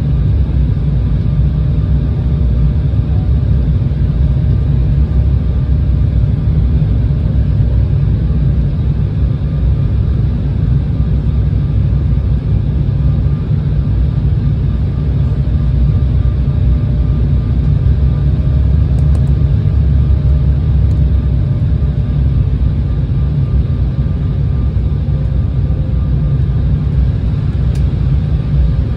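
Cabin noise of an Embraer E170 airliner in flight, heard from a window seat over the wing. Its twin turbofan engines and the rushing air make a steady, even low rumble, with faint steady engine tones above it.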